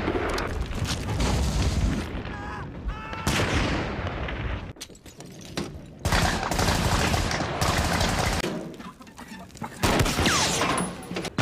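Heavy battle gunfire from a war-film soundtrack: rapid rifle shots and bursts of automatic fire. The firing drops briefly about five seconds in, returns heavily a second later, dips again near nine seconds and picks up once more near the end.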